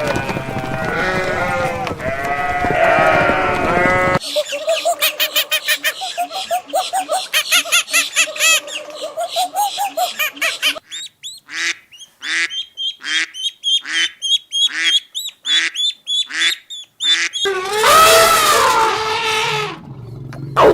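A run of farm animal calls. Bleating for about the first four seconds, then birds calling rapidly in a flock, then sharp bird calls repeating about one and a half times a second, and a loud new animal cry near the end.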